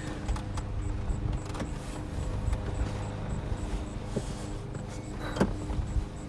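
Steady low hum inside a Tesla Model S cabin, with scattered light clicks and a sharper knock about five seconds in.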